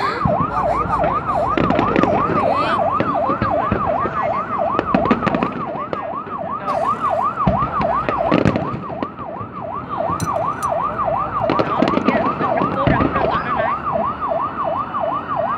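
A siren yelping, its pitch rising and falling quickly, about three times a second, without a break. Scattered sharp bangs, likely fireworks, sound underneath.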